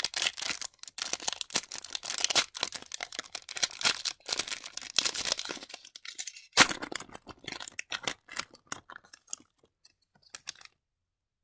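A foil trading-card pack wrapper being torn open and crinkled by hand: dense, irregular crackling and rustling, with one sharper, louder crackle about two-thirds through. It thins out and then cuts off abruptly about a second before the end.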